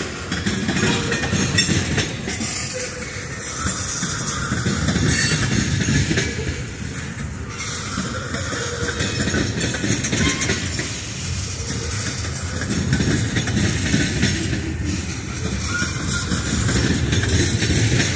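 Freight train of tank cars and centerbeam flatcars rolling past on the rails: a steady, unbroken rumble of steel wheels on track.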